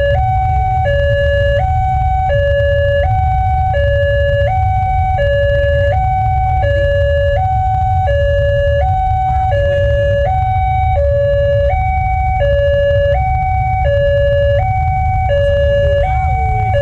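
Railway level-crossing warning siren from the loudspeaker horn on the crossing signal, sounding a steady two-tone alarm that alternates low and high about every three-quarters of a second: the warning that a train is approaching and the barrier is closed. A steady low rumble runs under it.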